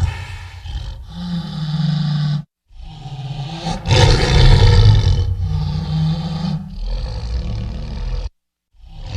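Edited creature roar sound effects made from lion and dinosaur roar recordings: a sequence of roars and growls, each cut off sharply, with a silent gap about two and a half seconds in and another near the end before a fresh roar begins. The loudest roar starts about four seconds in.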